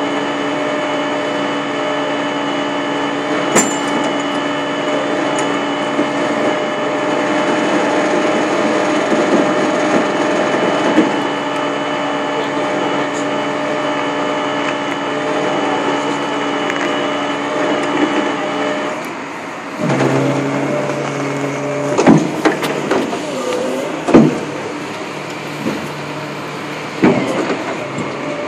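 Flatbed tow truck's engine running with a steady drone. About 19 s in its note changes and drops lower, and several sharp knocks and clanks follow.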